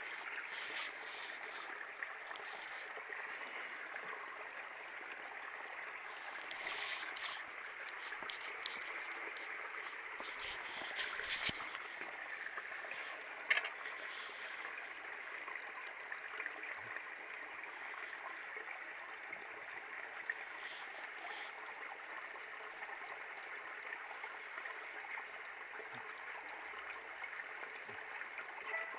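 Steady rush of running water, like a small creek or cascade, with a few faint taps and clicks over it; one sharp click about thirteen seconds in is the loudest moment.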